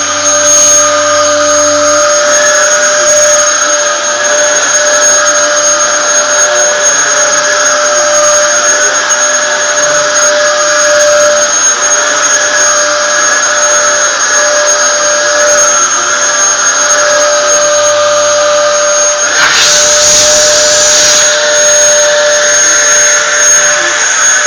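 Dyson vacuum cleaner running steadily with a high motor whine and rushing air. About twenty seconds in there is a brief louder rush, and a second, slightly lower tone joins the whine.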